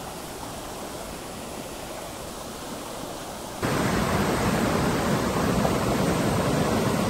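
Steady rush of a small mountain stream running over rocks. About three and a half seconds in it jumps suddenly louder and stays at that level.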